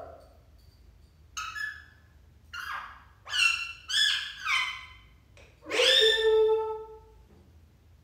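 Rose-ringed (Indian ringneck) parakeet calling: six short whistled notes that mostly fall in pitch, the last one the longest and loudest at over a second.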